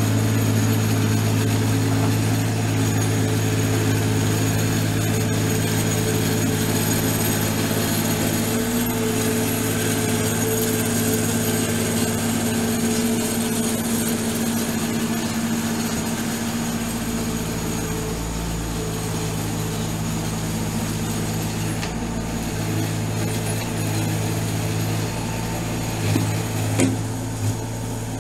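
An engine running steadily at an even pitch, with a few short knocks near the end.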